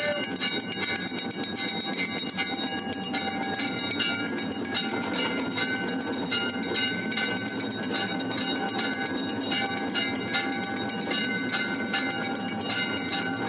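Temple bells ringing continuously in rapid strokes, a dense clanging with many sustained ringing tones layered over one another.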